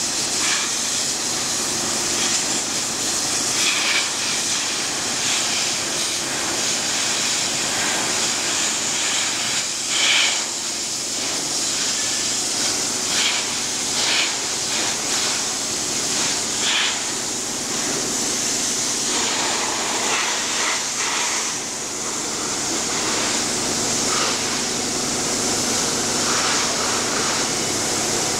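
Densin high-pressure washer jet blasting water onto steel grating: a steady, loud hiss with a few short, louder spatters as the spray hits the metal.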